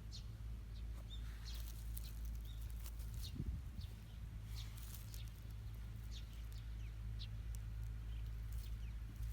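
Small birds chirping with short, scattered calls over a steady low rumble.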